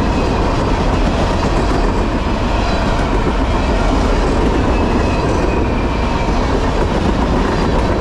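Long string of empty trash-container freight cars rolling past at speed close by: a loud, steady rumble and rattle of the cars and their wheels on the rails.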